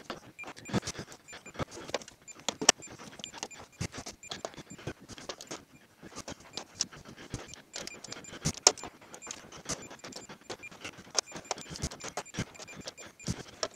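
Hand torque wrench ratcheting on the battery cover bolts during the second tightening pass: a continual run of small, irregular ratchet clicks, with a few sharper, louder clicks.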